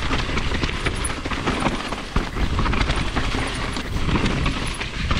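Mountain bike riding fast down a dirt trail: tyres rolling over gritty dirt and the bike rattling over bumps with many small clicks and clatters, over a steady low rumble of wind on the microphone.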